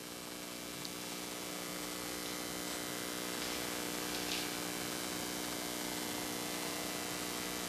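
Steady electrical mains hum from the sound system, with a couple of faint brief sounds about a second and about four seconds in.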